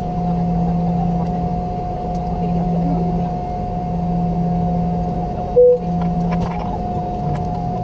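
Steady interior noise of a Boeing 717 with its two Rolls-Royce BR715 engines running: a low wavering hum under a constant whine. About five and a half seconds in comes one short, loud beep.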